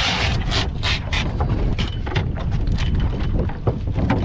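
Wind buffeting the microphone aboard a sailboat under way, a steady low rumble, with a brief hissing rush right at the start and a run of irregular sharp slaps and knocks throughout.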